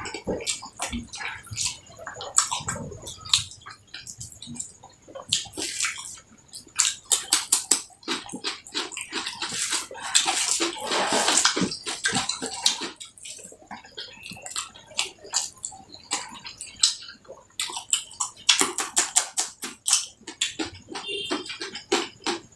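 Close-miked eating sounds of a person eating rice with curry: wet chewing and lip-smacking in quick runs of clicks, with a longer wet stretch about ten seconds in.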